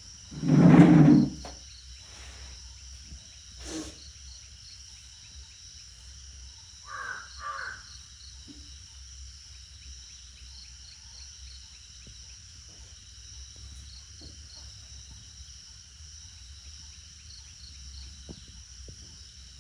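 Crickets and other insects chirping steadily, broken by one loud, low-pitched animal call lasting about a second near the start, and two short, higher calls around seven seconds in.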